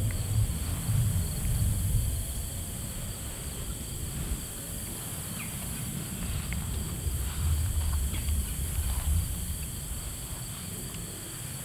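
Steady, high-pitched chorus of insects over a low, uneven rumble, with a few faint short chirps.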